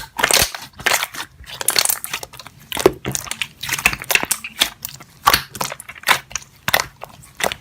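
Slime being squished and pressed, giving irregular crackly pops and squelches, about one or two a second.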